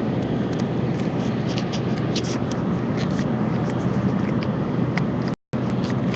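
Steady road and engine noise inside a moving car's cabin, with scattered small clicks and taps. The sound cuts out completely for an instant about five seconds in.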